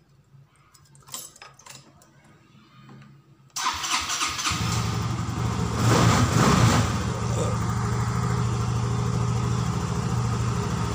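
A few clicks, then the Yamaha Xeon FI scooter's fuel-injected engine is started about three and a half seconds in. It catches after a brief crank, revs up briefly a couple of seconds later, and settles into a steady idle. It now starts after the broken wiring behind MIL fault code 19, which had kept it from starting, was spliced.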